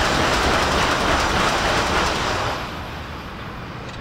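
Shinkansen bullet train passing close by at high speed: a loud rush of air and rail noise that holds at its peak and then fades about two and a half seconds in as the train moves away.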